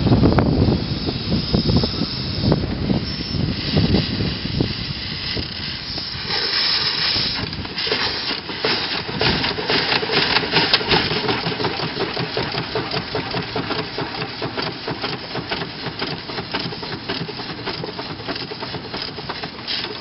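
1906 Russell steam engine running, with steam hissing and a fast, even chuffing beat. A burst of hiss comes about six seconds in.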